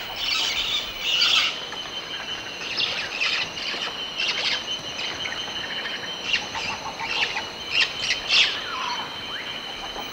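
Forest birds chirping and calling, many short scattered calls with one falling call near the end, over a steady high-pitched drone.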